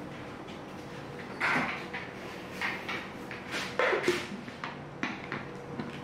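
Kitchen handling sounds: several short knocks and clatters of containers and utensils, spaced irregularly, over a faint steady hum.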